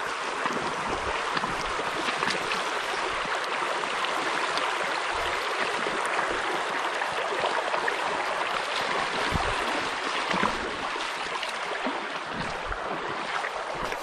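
Creek water rushing steadily over a shallow, rocky riffle, an even splashing hiss.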